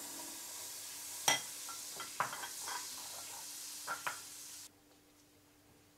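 Butter sizzling as it melts in a nonstick pan, with a silicone spatula pushing the pieces around and tapping against the pan several times. The sizzle cuts off suddenly a little before the end.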